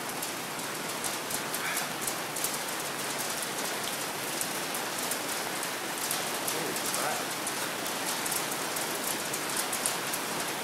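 Small hail pellets falling steadily, a dense patter of sharp ticks over an even rain-like hiss as they hit the patio and its furniture.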